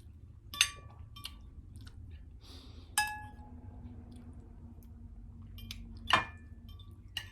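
An eating utensil clinking against a dish during a meal: four sharp clinks, each with a short ringing tone, the loudest about three seconds in and another about six seconds in.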